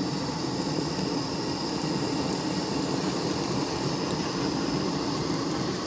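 Steady rushing hiss of the open gas flames heating a vertical trompo spit of meat.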